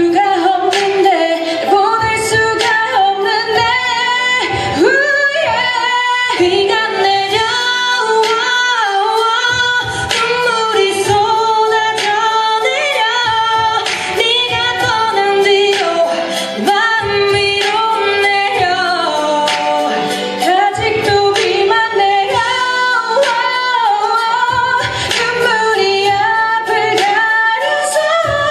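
Two female singers taking turns singing a pop ballad into handheld microphones, amplified over backing music with a steady beat.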